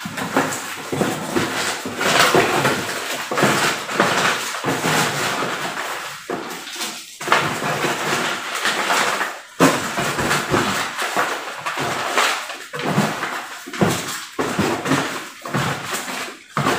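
Paper packing filler (leftover sticker backing paper) and cardboard rustling and crinkling as it is handled and pulled out of a parcel, in irregular bursts.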